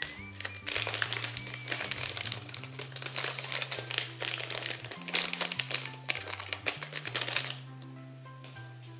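Crunchy slime crackling and crinkling densely as it is squeezed and worked by hand, stopping abruptly about seven and a half seconds in. Background music plays throughout.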